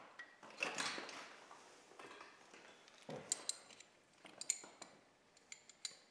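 Steel wrenches and hardware being handled, with a rustle and a dull knock followed by several sharp metallic clinks in the second half.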